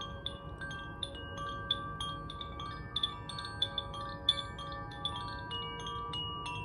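Wind chimes ringing: many quick, irregular strikes at different pitches, each note ringing on and overlapping the others.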